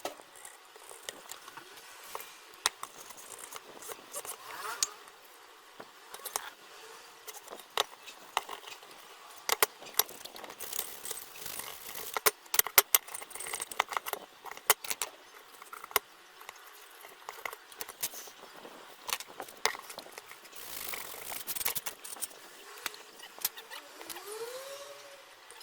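Small metal parts and tools being handled: irregular sharp clicks, light rattles and scrapes, thickest in the middle, with a couple of short squeaks.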